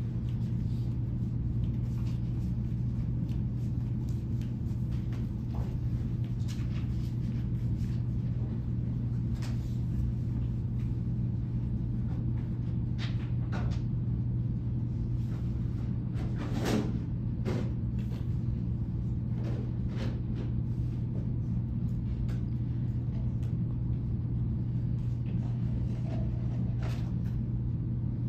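Room tone of a classroom: a steady low hum, with scattered faint clicks and rustles; the most distinct is a short knock about two-thirds of the way through.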